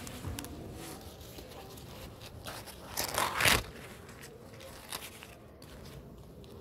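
Green sweetcorn husk leaves crackling and rustling as an ear of corn is handled, with one louder tearing rip about three seconds in.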